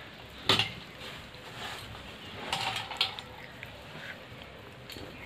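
One sharp knock about half a second in, then soft rustling and handling sounds as fresh chopped coriander leaves are laid out by hand on a stone grinding slab.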